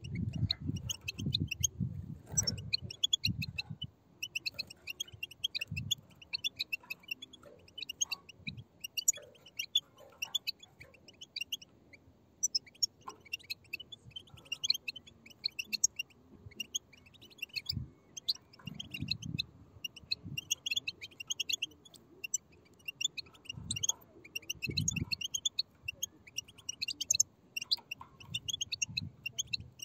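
A group of European goldfinch chicks making rapid, overlapping high begging chirps in bursts, with a few short gaps. Soft low thumps sound now and then, loudest near the start.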